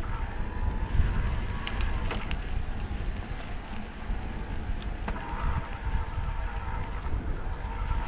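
Steady low rumble of wind and tyres on the microphone while riding a bicycle along a dirt trail, with a few light clicks and rattles.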